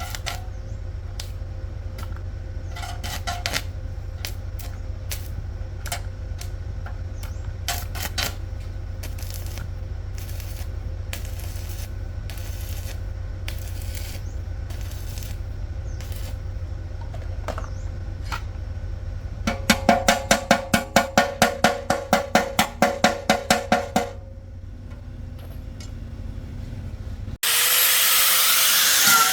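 Hand tools clinking on metal over a steady low hum, with a quick run of about twenty rapid taps or clicks partway through; near the end a loud steady hiss starts abruptly.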